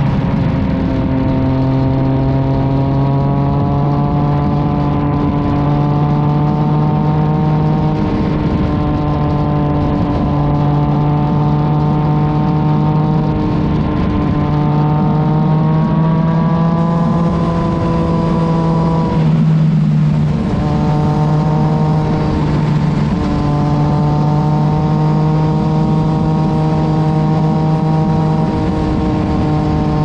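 Yamaha XSR900's inline-three engine through an Arrow aftermarket exhaust, heard close to the silencer while riding: a steady exhaust drone whose pitch climbs slowly. About two-thirds of the way through the note drops away briefly, then comes back and holds steady again.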